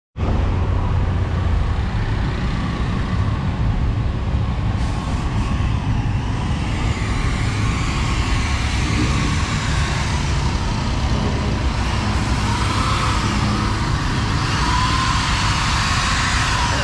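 A steady low mechanical rumble with a hiss over it, and a faint wavering whine in the last few seconds.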